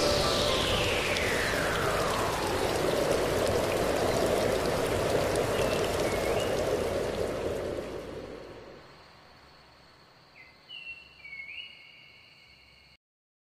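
Tail end of an electronic background music track: a wash of noise with a tone sliding steadily down in pitch over the first three seconds, fading away by about nine seconds in, then a few faint short high tones before silence.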